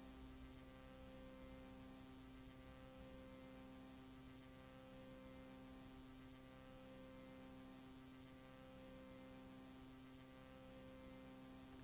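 Near silence: a faint, steady electrical hum with light hiss.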